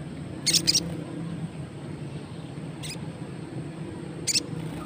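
Male olive-backed sunbird (sogon) giving short, sharp high chips: a quick pair about half a second in, then single chips about three and four seconds in, over a steady low hum.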